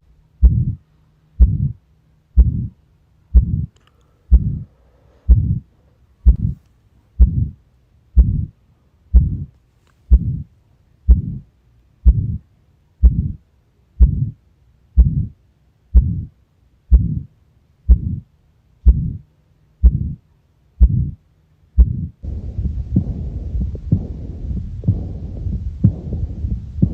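Recorded heart sounds as heard through a stethoscope: a slow, regular heartbeat of about one beat a second over a faint steady hum. About 22 seconds in it changes to a heartbeat buried in a continuous rushing noise, the kind of sound a heart murmur makes.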